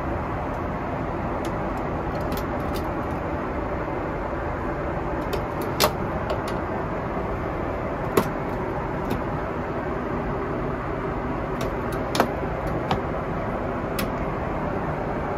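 Steady rushing cabin noise of a Boeing 747-8 at cruise: airflow and engine noise heard inside the cabin. Scattered light clicks and taps sound over it, the sharpest about six, eight and twelve seconds in.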